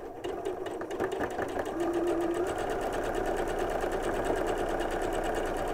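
Domestic electric sewing machine stitching a seam through pinned patchwork strips. It starts slowly with separate stitches for about the first second, then speeds up to a steady, fast stitching.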